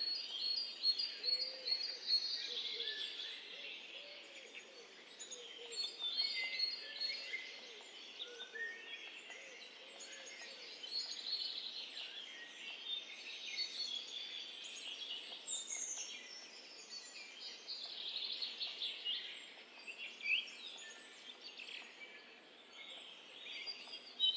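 Several songbirds chirping and singing in short, repeated phrases over a steady background hiss.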